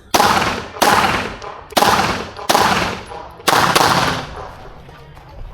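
A string of about five pistol shots fired at an irregular pace, under a second apart, each trailing a short echo, the last two close together.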